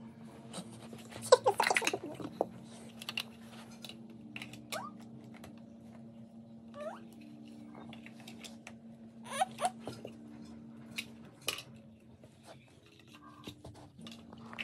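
Large plastic toddler building blocks clacking and knocking together as they are handled, in scattered clicks with a quick cluster of them a second or two in.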